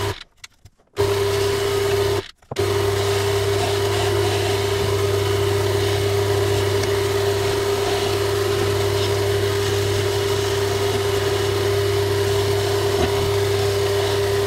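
Wood lathe motor running steadily with a constant hum while a skew chisel cuts the spinning wooden spindle. The sound drops out twice, for about a second just after the start and again briefly a couple of seconds in.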